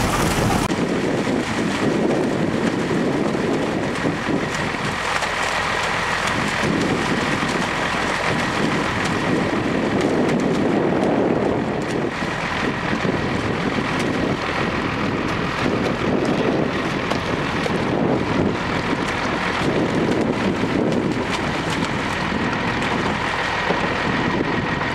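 Water gushing out of a fish-stocking truck's tank through the chute and splashing into the lake, a steady rushing noise, with wind buffeting the microphone.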